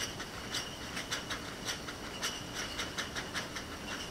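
Wine bottling line clattering: glass bottles clinking against each other in sharp, ringing clinks, irregularly about three to four a second, over a low steady machine noise.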